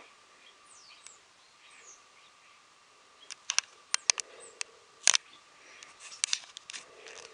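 Common starlings at a hanging garden feeder: a few thin falling bird whistles in the first seconds, then from about three seconds in a run of sharp ticks and taps as the starlings flutter and peck at the feeder.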